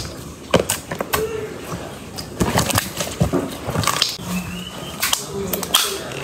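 Yellow slime squeezed and kneaded between the fingers, giving sticky squelches and irregular sharp pops as air pockets burst. A short high squeak comes about four seconds in.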